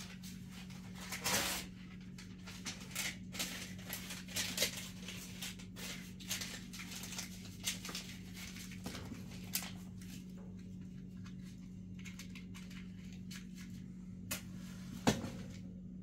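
Paper rustling and light clicks as paper is handled and fed into an open heating stove, with a louder rustle about a second in and a sharper knock near the end, over a steady low hum.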